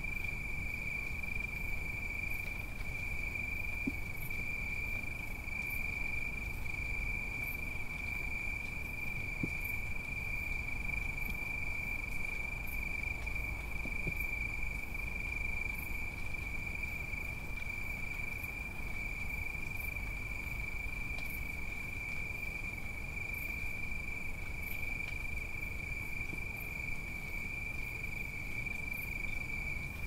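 Cicadas droning as one steady high-pitched whine, with a fainter very high pulse about once a second. A few light raindrops drip now and then, over a low city rumble.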